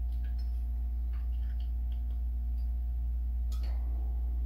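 Scattered small metallic clicks and taps as the parts of a Warn manual locking hub are turned and fitted together by hand, one a little sharper about three and a half seconds in, over a steady low hum.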